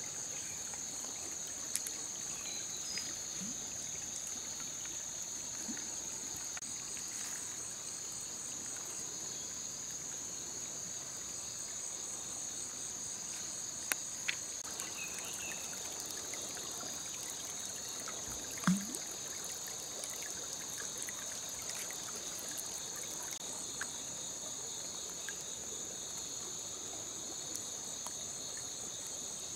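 Steady high-pitched chorus of forest insects with a faint trickle of stream water beneath. A few small clicks and knocks are scattered through it, the loudest a low thump about two-thirds of the way in.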